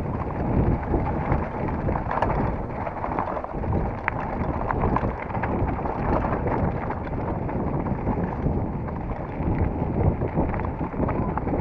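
Wind buffeting the microphone over the clatter and knocks of a mountain bike riding fast down a rough dirt trail.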